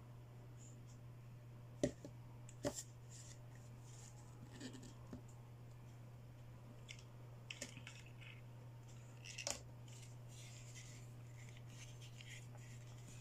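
Hands unboxing small plastic toy accessories: scattered clicks and taps, the loudest about two seconds and nine and a half seconds in, with light rustling of packaging later on, over a steady low hum.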